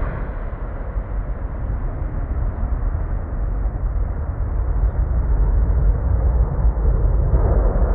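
The two jet engines of a Boeing 777-300 running at high go-around thrust as it climbs away. The sound is a deep, steady roar that grows louder over the last few seconds.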